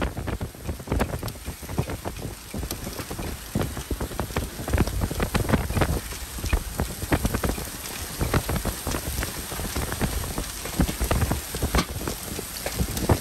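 Torrential rain beating down: a dense, loud hiss broken by many irregular thumps and crackles.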